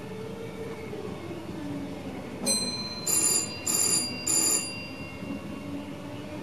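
VIRM electric train running in the cab with a steady hum and a gently wavering motor whine. About two and a half seconds in, an electronic ringing signal in the cab gives a short tone, then rings in three quick loud bursts.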